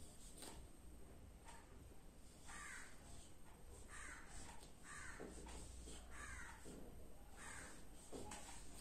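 Whiteboard marker squeaking faintly on the board in a run of short strokes as numbers are written, starting a couple of seconds in.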